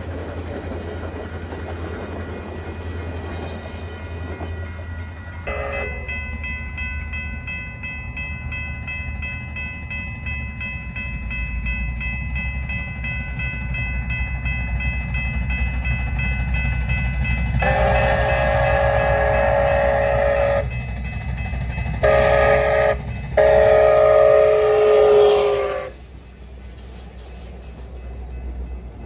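CP 2816's steam chime whistle blowing as the train rolls past with a steady low rumble: a faint held chord from about five seconds in, then loud blasts near the end, long, short, long. The train's rumble carries on after the whistle cuts off.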